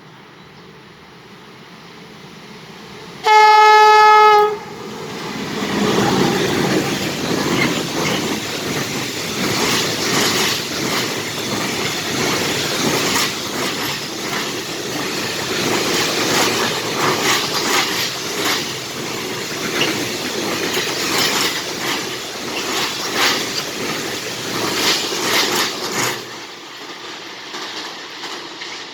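A locomotive horn sounds one blast of just over a second, then a freight train passes, its wheels clattering over the rail joints for about twenty seconds before the sound drops off sharply near the end.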